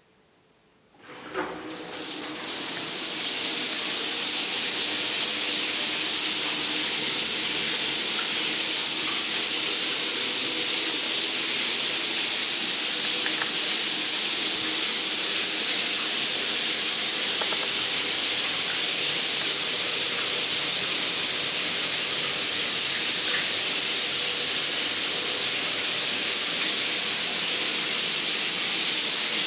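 Overhead rain shower turned on about a second in, with a click or two as it opens, then water spraying steadily from the shower head.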